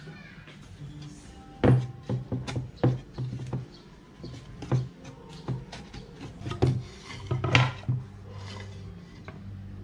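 Wooden speaker enclosure and its front baffle panel being handled on a wooden workbench: a series of irregular wood-on-wood knocks, taps and clunks, the loudest about two seconds in, with some rubbing and sliding of the panels.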